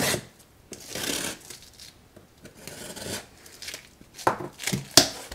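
Hands rubbing and sliding over a cardboard shipping box and its packing tape, a few scraping swishes, then sharper cardboard clicks and knocks near the end, the loudest about five seconds in.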